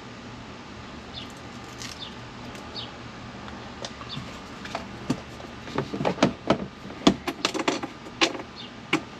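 Hands working under a vehicle dashboard, fitting a small antenna and its cable. A few faint squeaks come in the first half, then an irregular run of knocks and taps against the dash in the second half.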